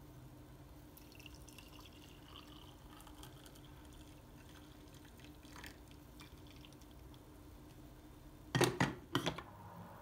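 Faint liquid trickling and dripping, then two loud knocks about half a second apart near the end.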